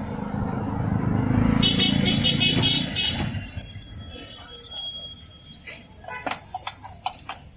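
Street traffic: a motor vehicle's engine rumbles by while a horn honks in quick repeated beeps. Near the end this gives way to a run of sharp clicks and knocks.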